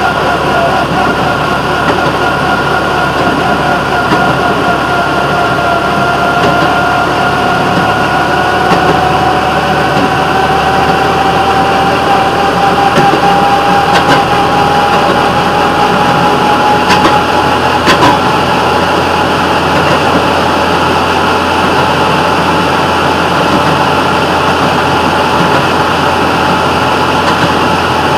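Railroad motorcar (track speeder) running along the rails: a steady engine and drive noise with a whining tone that climbs slightly in pitch early on and then holds, and a few sharp clicks about halfway through.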